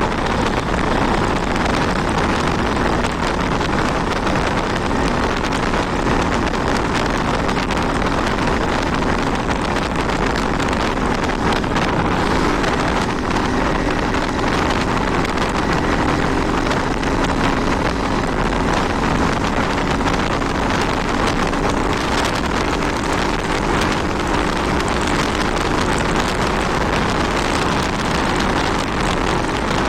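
Wind rushing over the microphone while a Honda 160 motorcycle is ridden, its single-cylinder engine running steadily under the wind noise.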